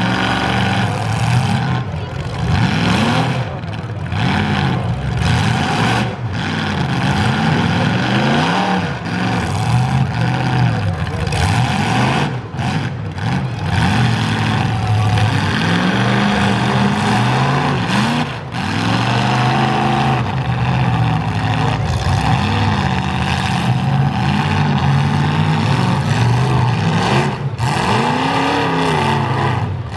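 Demolition derby cars' engines revving hard, pitch repeatedly climbing and dropping, as the two modified full-size cars push against each other locked bumper to bumper.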